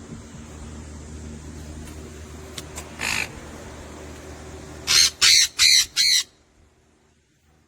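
A pet bird squawking: one call about three seconds in, then four loud squawks in quick succession about five seconds in.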